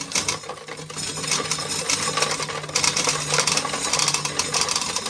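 Corn sheller stripping dry kernels from the ears: a dense, fast rattle of kernels clicking and clattering over a steady low mechanical hum.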